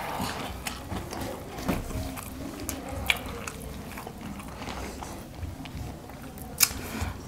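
People eating chicken biryani by hand off banana leaves: chewing and mouth sounds, with small clicks and rustles as fingers work the rice on the leaves. A few sharper clicks stand out, one about three seconds in and one near the end.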